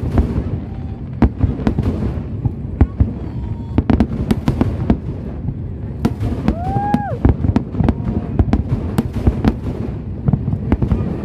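Aerial firework shells bursting in quick succession: many sharp bangs and crackles over a continuous low rumble of detonations.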